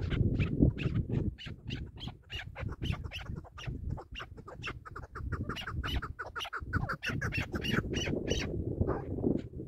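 Chukar partridge calling: a fast run of short clucking notes, about five or six a second, over a low rumbling noise.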